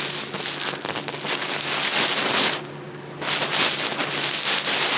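Dense crackling and rustling right on the microphone as a puppy paws and mouths at the camera. It drops away briefly for about half a second midway.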